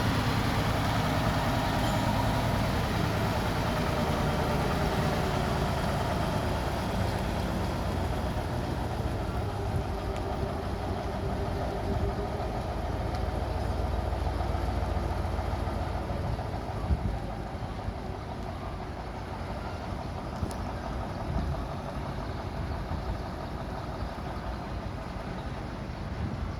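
Heavy earthmoving machine's engine running steadily, its pitch shifting a little in the first few seconds, with a sharp knock about two-thirds of the way through.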